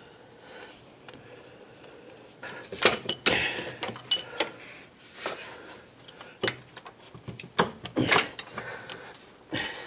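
Metal clinks, knocks and scrapes as a replacement A/C compressor is worked by hand down into its mounting space in a car's engine bay, catching on the parts around it. The loudest knocks come about three seconds in and about eight seconds in.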